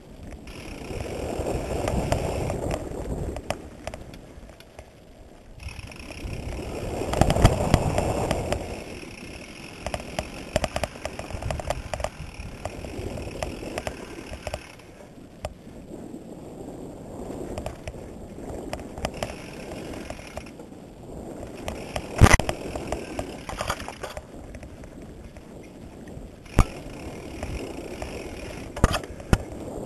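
Mountain bike rolling down a rough dirt trail: a rushing noise of tyres and air that swells and fades, with scattered clicks and rattles from the bike over bumps and a few sharp knocks, the loudest about 22 seconds in.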